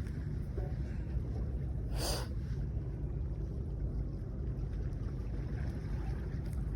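Steady low wind rumble on the microphone over the wash of the sea, with one short hissing rush about two seconds in.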